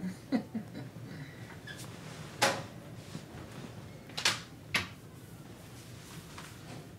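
A few brief sharp knocks or clatters, like household handling sounds, over quiet room noise: the loudest about two seconds in and two more around four seconds in.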